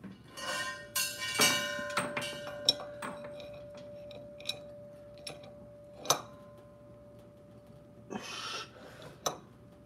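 Metal clinks and knocks of a wrench on a gas-cylinder regulator fitting as it is tightened and handled. One knock a second or so in leaves a steady ringing tone that lasts for several seconds, with a few more sharp clicks over it.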